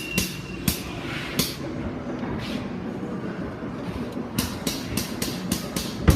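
A hand grease gun worked on a boom cylinder grease nipple of an excavator: a few sharp clicks, then a quick run of about four clicks a second near the end.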